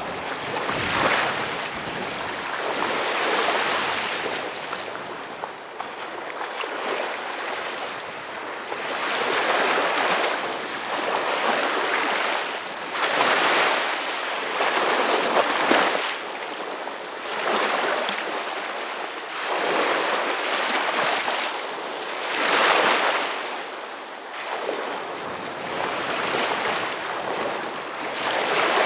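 Small waves breaking at the shoreline and washing up over a sand beach, then draining back, swelling and fading every few seconds.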